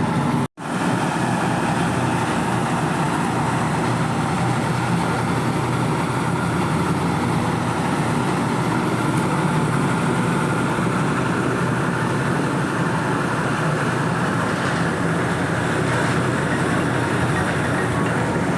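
Engine of concrete-work machinery running steadily. The sound drops out for an instant about half a second in.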